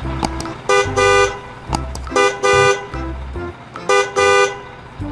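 Vehicle horn honking in a repeating short-then-long pattern, a quick toot followed by a longer one, about every second and a half.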